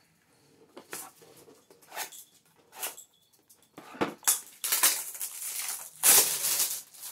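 Plastic wrapping crinkling and tearing as a pack of sports cards is opened by hand: a few short crackles, then louder, longer crinkling over the last three seconds.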